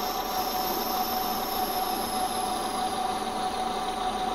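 Metal lathe running at a steady speed while a parting tool cuts through a spinning graphite bar. A steady machine hum with a faint high whine that slowly falls in pitch.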